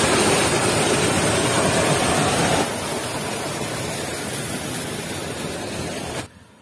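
Water pouring through an opened gap in a concrete check dam and splashing into the stream below: a steady rushing noise. It drops to a lower level about two and a half seconds in and cuts off suddenly near the end.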